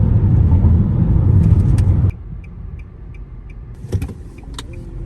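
Car cabin road noise, a steady low rumble while driving, cuts off suddenly about two seconds in. A quieter stationary car interior follows, with light regular ticking about three times a second and a single knock.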